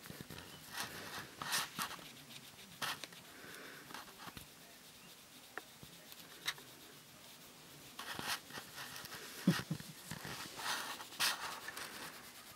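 Soft rustling and scratching on cloth in irregular short bursts as a very young kitten crawls over a fabric-covered lap and a hand moves beside it, with a low soft bump about nine and a half seconds in.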